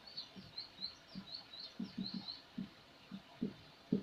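Marker writing on a whiteboard: soft, irregular taps and strokes, the sharpest one near the end. Over the first half, a quick run of high, thin chirps.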